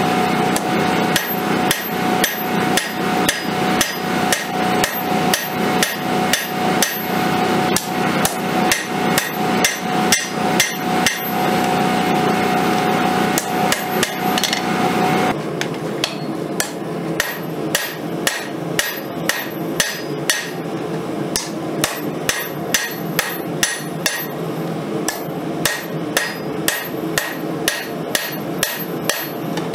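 Hand hammer striking a red-hot 5160 leaf-spring steel blade on an anvil, a steady run of blows, several a second, as the Bowie blade is forged to shape. A steady background hum runs under the blows and stops about halfway through.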